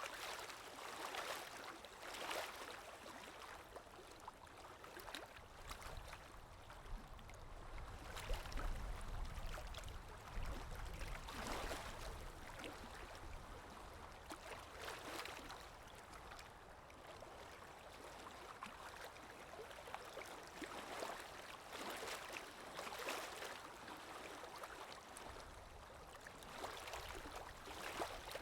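Small Lake Erie waves breaking and washing on the shore, one swell after another every second or two. A low rumble runs under them for several seconds about a quarter of the way in.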